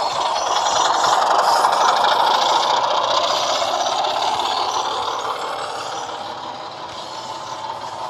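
Model class 25 diesel locomotive's DCC sound decoder playing Sulzer diesel engine sound through its small speakers, mixed with the clatter of model wheels on the track. It grows louder to a peak about a second or two in, then fades slowly as the train passes by.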